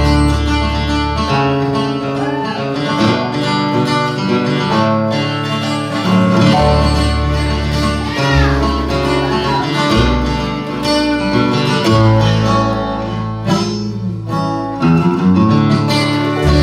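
Live bluegrass band playing an instrumental break with no vocals: acoustic guitar, banjo, mandolin and fiddle over an upright bass. The music dips briefly near the end.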